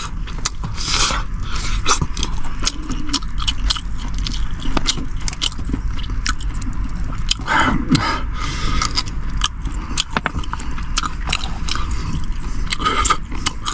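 Close-up eating sounds: gnawing meat off bones and chewing, a dense run of small clicks, crackles and slurps, over a steady low rumble of strong wind buffeting the parked car.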